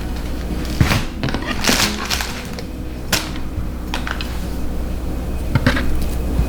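Kitchen preparation sounds: irregular knocks, clicks and rustles from handling food and utensils, with a sharp click about three seconds in and a cluster of knocks near the end.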